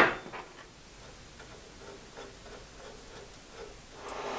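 A sharp click at the start, then faint, scattered light ticks as a sheet-metal blade guard and its small screws are handled against the bandsaw's cast frame. Near the end a steady whirring noise starts to rise.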